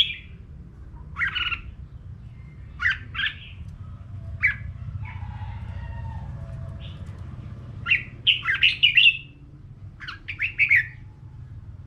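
Red-whiskered bulbul singing in short, loud, bright phrases every second or two, with a longer run of quick notes about eight seconds in and another near the end, over a low steady hum.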